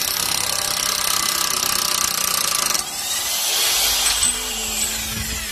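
Impact wrench hammering on the driveshaft (axle) nut of a SEAT Ibiza 6L front hub, loosening it. The sound changes and eases about three seconds in.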